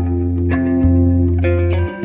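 Background music: sustained pitched notes with new notes struck every half second or so, over a steady low bass line.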